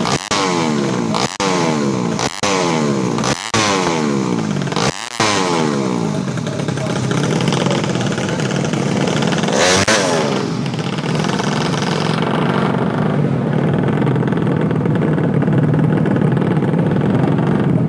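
Tuned 130cc four-stroke underbone drag-bike engine revved hard in sharp throttle bursts about once a second, then holding a steady high-revving run, with a louder surge about ten seconds in.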